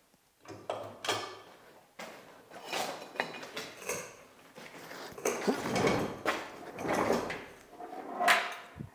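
Irregular metal clunks, knocks and scrapes from a stripped Audi TT mk3 body shell as it is rocked and lowered by hand onto its wheels. The sounds grow busier in the second half, with the loudest knock near the end.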